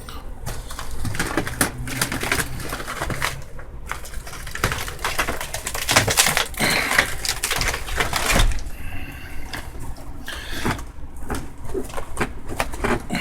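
Camper ceiling being torn out by hand: an irregular run of cracking, crunching and scraping as the panelling and framing are pulled down, busiest about halfway through.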